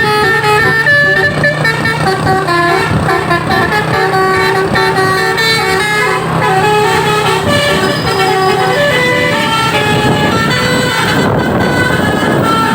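A truck's 'telolet basuri' multi-tone musical air horn playing a tune, note after note in quick succession, with the engine running underneath. The sound turns noisier and rougher over the last few seconds.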